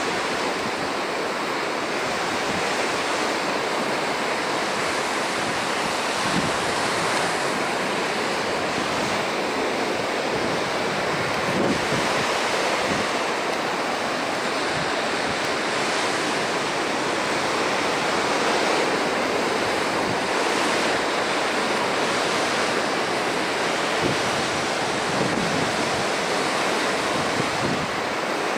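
Ocean surf: waves breaking and washing towards the shore in a steady rush of noise.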